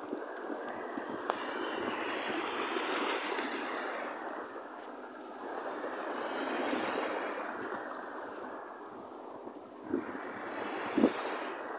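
Surf washing onto a sandy beach, swelling and fading every few seconds. Two short thumps come near the end.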